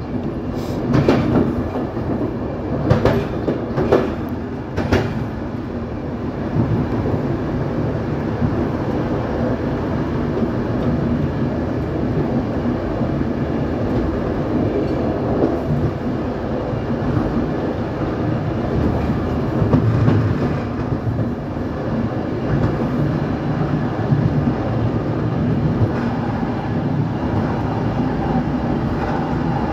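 Train running along the track with a steady rumble of wheels on rail. In the first five seconds there are several sharp clacks as the wheels cross the points.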